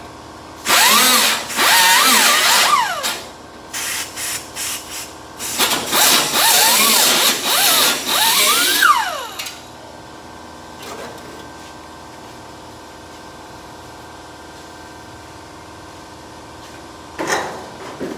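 Handheld pneumatic air tool cutting out a rotten, rusted sheet-metal battery box, run in bursts: a long run about a second in, a few short stabs, then another long run, with squealing from the metal that slides up and down in pitch. It falls quiet for several seconds, then gives one more short burst near the end.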